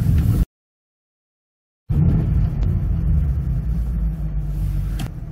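Steady low rumble of a car driving over snow, heard from inside the cabin. The sound drops out to dead silence for about a second and a half shortly after the start, then the rumble resumes.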